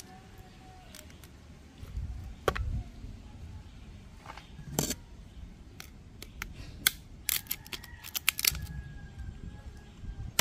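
Raw crabs being cleaned by hand: shells cracked, snapped apart and cut with a knife, giving a scatter of sharp clicks and snaps, with two louder cracks a few seconds in and a quick run of clicks later on.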